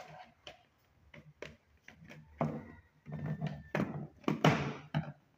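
Hard plastic clicks, knocks and short scrapes as a wired electrical socket faceplate is handled and pushed onto a plastic surface-mount box, getting busier and louder in the second half.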